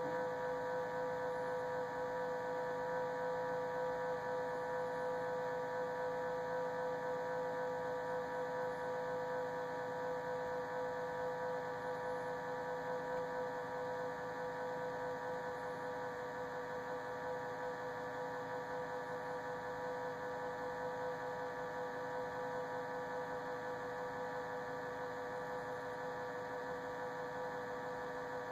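Samsung refrigerator running with a steady, tonal hum made of several pitches, strongest in a mid-pitched whine: an abnormal running noise from the fridge.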